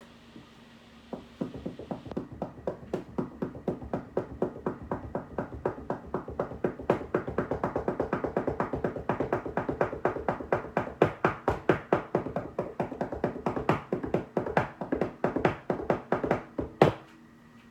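Intro music: a fast, steady percussive beat of about five hits a second, ending on one louder hit near the end.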